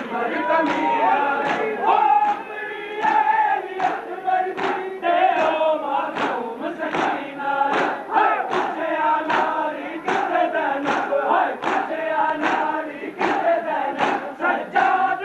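A large crowd of men chanting a Shia noha in unison, with a steady beat of hands slapping chests (matam) a little faster than once a second.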